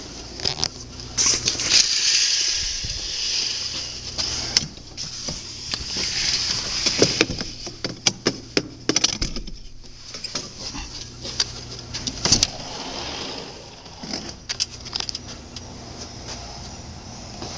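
Sliding patio door and screen door being opened and passed through: rattling with many sharp clicks and knocks throughout.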